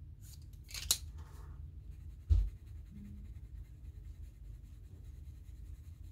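Soft-core colored pencil scratching on paper as a swatch box is shaded in. There is a sharp click about a second in, and a dull thump on the table a little past two seconds, the loudest sound here.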